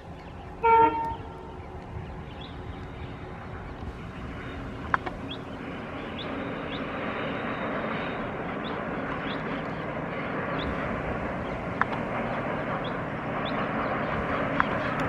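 Diesel locomotive horn giving one short blast about a second in, followed by the locomotive's engine and the train's running rumble, growing steadily louder as the train comes on.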